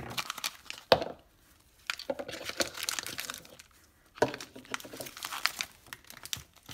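Crinkling of the thin plastic wrapper bags from an L.O.L. Surprise ball being handled and pulled out, in uneven spells. A sharp knock comes about a second in and another just after four seconds.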